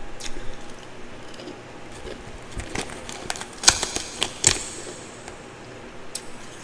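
Crisp crunching and crackling of twice-refrozen powdery ice, with a cluster of sharp cracks in the middle, loudest about three and a half seconds in.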